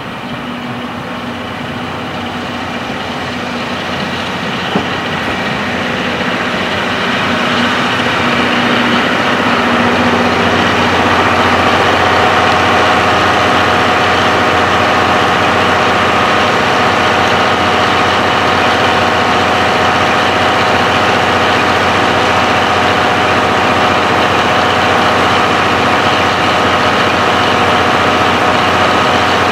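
KiHa 181 diesel express railcar drawing slowly up to the platform, its diesel engines getting louder over the first dozen seconds, then idling steadily as it stands. A single sharp click about five seconds in.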